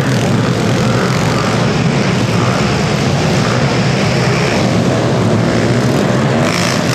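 Several small pit bike engines running hard during a race, a steady, dense engine drone.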